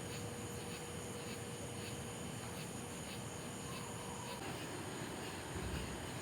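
Steady outdoor background noise with insects chirping faintly about three times a second. A thin steady hum stops about four seconds in.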